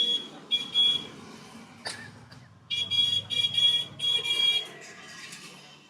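Several short blasts of a high-pitched buzzing tone, in the first second and again between about three and four and a half seconds in, over low rubbing and rustling, with one sharp click about two seconds in.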